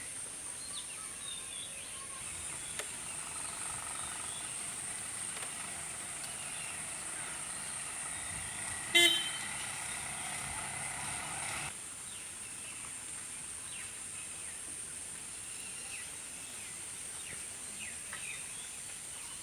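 A road vehicle's engine runs for several seconds, then stops abruptly. About nine seconds in, a short horn honk is the loudest sound. Through it all there is a steady high-pitched drone and scattered bird chirps.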